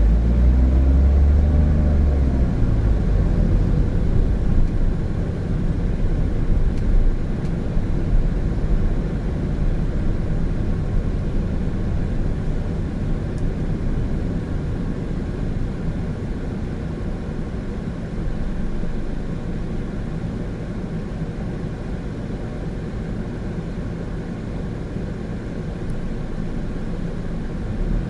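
Cabin sound of a Honda N-BOX Custom with a 660 cc turbo three-cylinder engine, driving on city roads: a steady low rumble of engine and tyres. In the first couple of seconds the engine note rises as the car accelerates.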